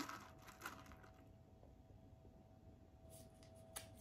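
Near silence: faint room tone with a faint steady hum, soft rustling and crackling in the first second, and a single click near the end.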